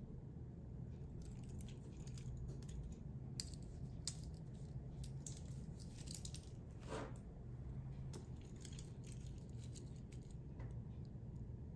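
Stainless steel beads-of-rice bracelet of a Baltic MR01 watch clinking as the watch is handled, laid down and picked up: a scattered series of light metallic clicks over a faint steady low hum.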